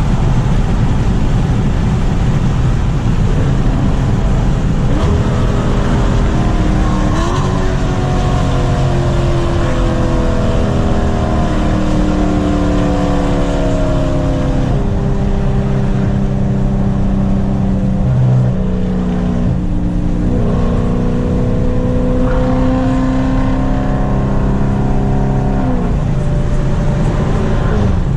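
Loud car engine and exhaust running continuously, its pitch sliding slowly down and jumping back up several times through the middle.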